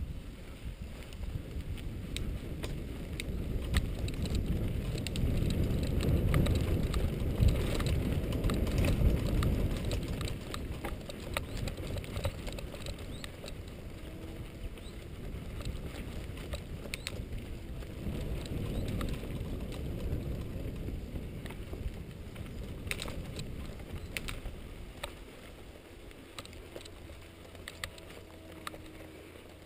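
Mountain bike riding over a rough grass trail: a low rumble from the tyres and frame, with many scattered clicks and rattles from the bike. It is loudest a few seconds in and grows quieter toward the end.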